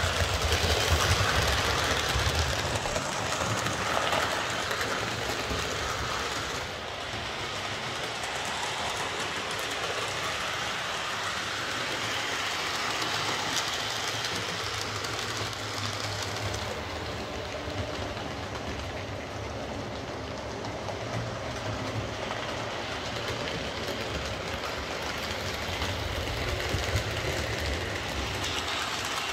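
Hornby R257 Schools Class 4-4-0 00 gauge model locomotive, driven by a ringfield motor in its tender, running round the layout with a rake of coaches: a steady running noise of motor and wheels on track, loudest in the first few seconds as the train passes close by. It is running fine with its loose driving wheel repaired.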